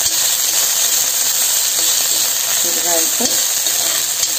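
Chopped ginger frying in hot coconut oil in a wok, a steady sizzling hiss as it is stirred with a steel spoon.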